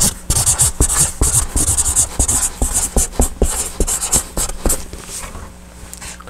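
Felt-tip marker writing on flip-chart paper in quick squeaky strokes, stopping after about five seconds.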